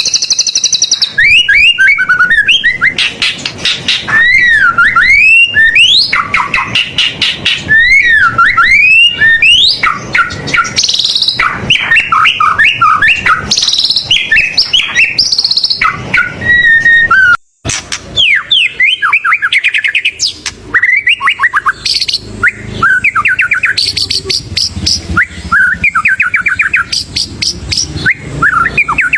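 White-rumped shama (murai batu) singing continuously: a loud, varied song of whistled phrases sliding up and down, mixed with fast trills and mimicked phrases, broken once a little past halfway.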